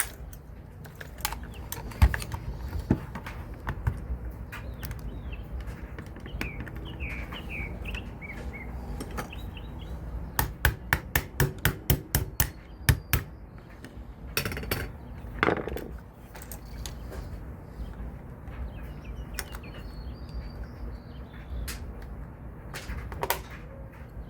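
Scattered sharp clicks and knocks of an airsoft rifle's parts being handled and tapped during reassembly, with a quick run of about ten taps, roughly four a second, starting about ten seconds in. A few short high chirps come about seven seconds in.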